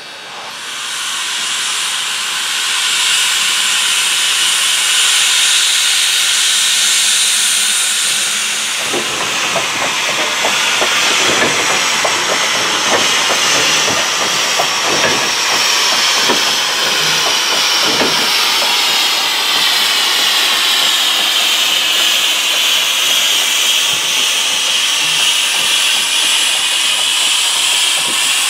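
Heisler No. 6 geared steam locomotive standing with steam venting in a loud, steady hiss. From about nine seconds in, irregular knocks and clanks sound under the hiss.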